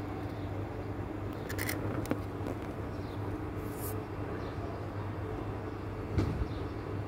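Steady low mechanical hum, with a few faint clicks and a short soft thump about six seconds in.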